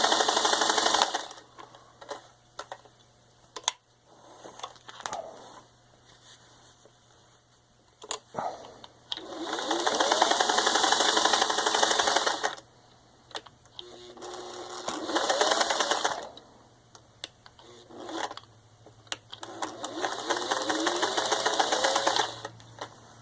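Singer 404A straight-stitch sewing machine stitching through six layers of denim in four short runs, the motor rising in pitch as each run speeds up, with forward and reverse stitching. Between runs there are scattered clicks and knocks from the machine being handled.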